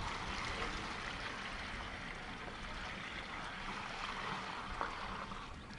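Water pouring steadily from a black rubber bucket into a plastic container, thinning out near the end.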